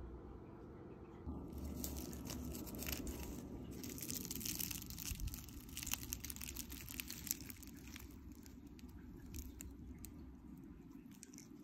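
Crisp baked phyllo pastry crackling and tearing as a piece of spinach and cheese pie is pulled apart by hand. The crackling starts about a second in, is densest through the middle, and thins out toward the end.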